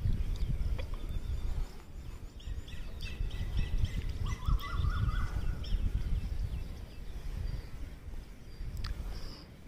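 Gusting low rumble of wind on the microphone, with birds calling over it: a run of quick repeated chirps in the middle and a short rising trill.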